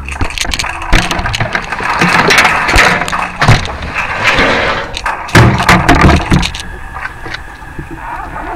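Trash being dumped into a metal dumpster: dense rattling and rustling with many sharp knocks and cracks, easing off after about seven seconds.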